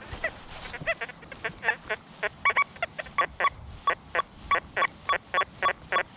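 XP Deus II metal detector giving a rapid string of short, nasal target beeps, about four a second and uneven in strength, as the coil is swept over the ground. It is the iffy, iron-sounding tone that the detectorist is about to dig.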